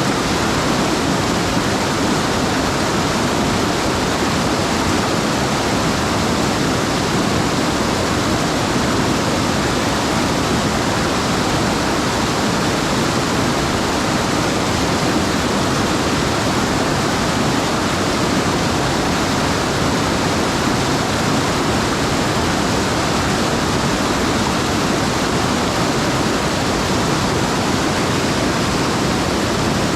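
Rain-swollen mountain stream rushing steadily and loudly close by.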